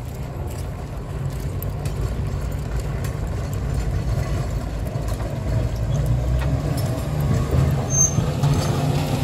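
Historic electric tram rolling along street rails, a low rumble that grows steadily louder as it approaches and passes close by.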